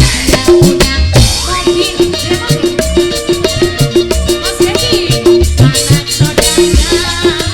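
Dangdut band music played live, with a steady, busy drum rhythm under a repeating melody line.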